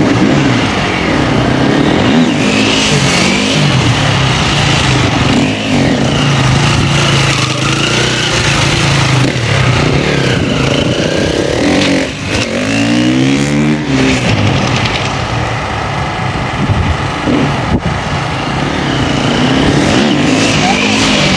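KTM 1290 Super Duke's V-twin engine revving up and down repeatedly as the motorcycle is ridden through stunts, with a long rising run of acceleration about twelve seconds in.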